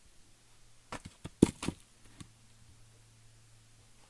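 A short cluster of wooden knocks about a second in, the loudest near the middle: cut firewood rounds knocking against each other as they are carried and stacked. A faint low hum runs underneath.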